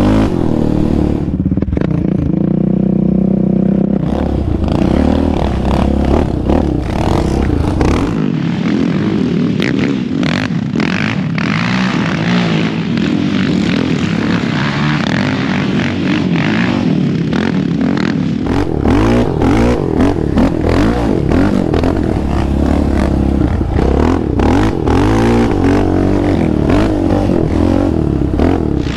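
Yamaha Raptor 700R quad's single-cylinder engine, fitted with an aftermarket exhaust, revving up and down as it is ridden over a sandy trail, with rattling and scraping from the machine. For a stretch in the middle the engine is heard at a distance from the trackside instead of onboard, with other quads revving on the sand track.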